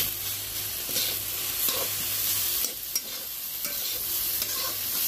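Flat metal spatula scraping and stirring snail meat, potatoes and dried mahua fruit in a metal kadhai, over a steady sizzle of frying. Several sharper scrapes stand out, around a second in and again near three seconds.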